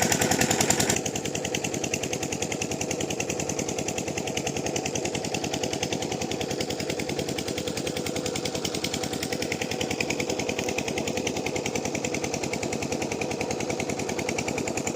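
8 hp Rajkot single-cylinder diesel engine of a water pumpset running steadily, its exhaust beating in a rapid, even rhythm. The sound drops a little in level about a second in.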